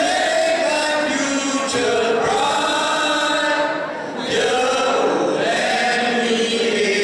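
A group of voices singing together in slow, long-held phrases, with a short break about four seconds in.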